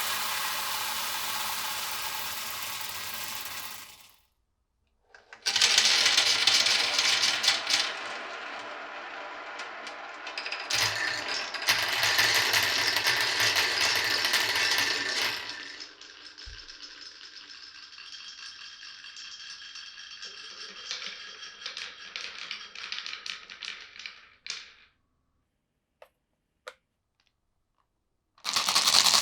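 Marbles rolling and clattering down a marble run, a dense rapid rattle. It fades out, stops briefly, then comes back louder for about ten seconds. It settles into a quieter rolling rattle, stops with a couple of single clicks, and starts loud again near the end.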